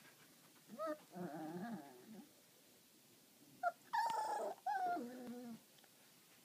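Tibetan Terrier puppy vocalizing in play, with high whining cries and lower growls. The calls come in two short bouts, one about a second in and a louder, longer one about four seconds in.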